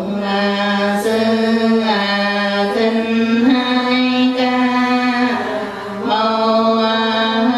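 Buddhist nun's voice chanting slowly in long held notes, each about a second long, the pitch stepping from note to note with a brief break near the end.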